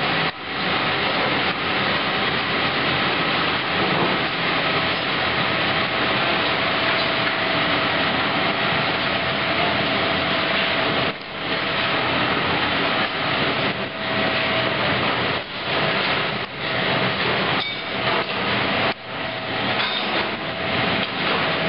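Bamboo skewer-making machinery running in a factory, a dense steady din with a constant whine, broken by a few brief drops in level.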